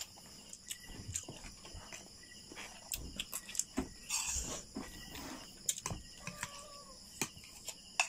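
Steady high chirring of insects, crickets among them, with scattered sharp clicks of a metal spoon against a plate as rice is scooped, and chewing.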